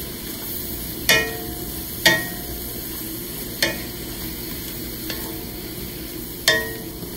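Mushrooms and onions sizzling in a stainless steel skillet while a wooden spatula stirs them. The spatula knocks against the pan five times, one of them faint, and each knock leaves a short metallic ring.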